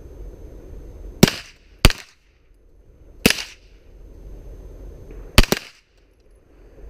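Five gunshots in slow aimed fire: three spaced a second or more apart, then a quick double near the end.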